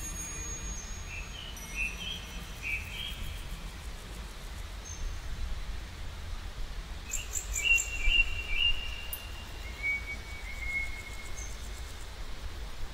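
Small songbirds chirping and whistling in short, scattered phrases, busiest about seven to nine seconds in, over a steady low background rumble.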